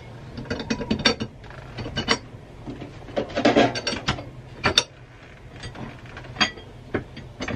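Runs of quick metallic clicks and clinks from hand tools and bolts as the new stainless chainplates are bolted through from inside the boat, in scattered bursts with a denser patch about halfway through.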